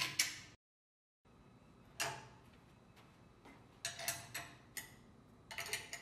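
Light metallic clicks and clinks of steel bolts and open-end wrenches against the valve actuator's bolted bracket as the transducer bracket is bolted on: a cluster at the start, a single click about two seconds in, a quick run of clinks around four seconds and another cluster near the end.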